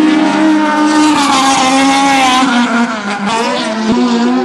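Drift car's engine revving hard through a slide, its pitch rising and falling as the throttle is worked, with tyre squeal from the sliding rear tyres.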